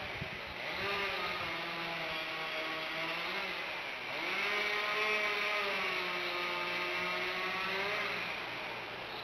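Two-stroke chainsaw running, its engine note climbing and sagging as it is revved: up about a second in, and up again about four seconds in, held for several seconds, then easing off near the end.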